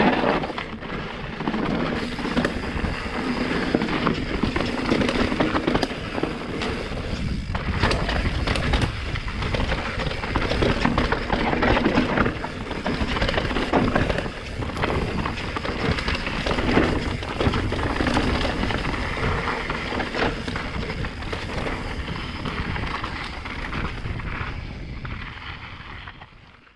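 Mountain bike descending fast over rough trail: wind buffets the action camera's microphone over the rumble of tyres on rocky dirt and the steady rattle and knocking of the bike's chain and frame. The sound fades out near the end.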